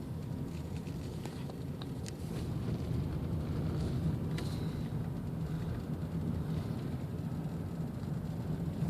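A car driving, heard from inside the cabin: a steady low rumble of engine and road noise that swells slightly a couple of seconds in, with a few faint clicks.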